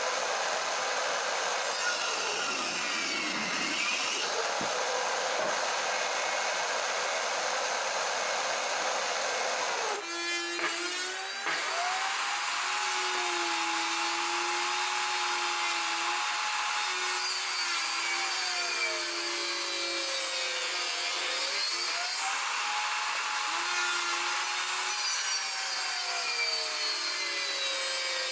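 Bosch table saw running and cutting wood. The motor's whine sags in pitch twice as the blade takes the load and then recovers, with a brief break in the sound about ten seconds in.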